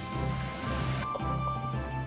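Background music with steady held tones over a repeating low bass pattern.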